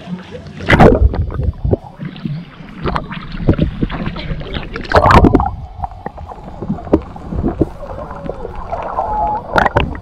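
Sea water splashing and sloshing against an action camera at the surface, with sharp splashes about a second in and around five seconds. The sound then turns muffled and gurgling as the camera goes underwater.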